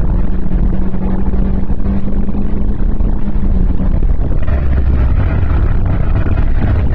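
Renault Clio 1.6 16v four-cylinder engine running under way, heard from inside the car and poorly recorded. A steady engine note holds for about the first four seconds, then gives way to a heavier low rumble.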